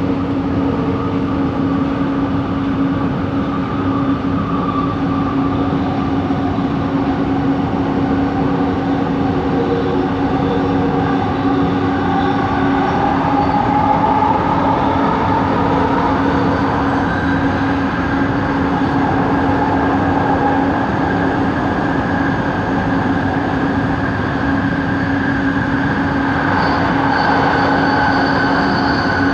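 Rapid-transit train, Set 70, running between stations with a constant hum and a higher motor whine that rises in pitch partway through and then holds. This is the unusual motor noise reported from this trainset.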